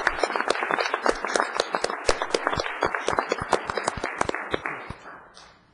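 Audience applauding, many hands clapping unevenly, dying away about five seconds in.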